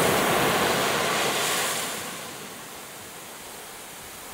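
Ocean surf breaking at the shoreline, a loud rush of water for about two seconds that then fades into the softer hiss of foam washing up the sand.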